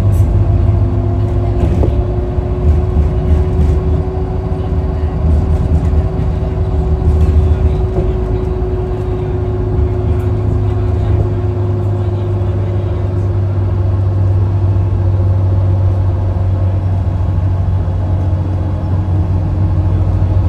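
Steady low rumble of a moving road vehicle's engine and tyres, heard from inside the cabin, with a faint constant hum above it.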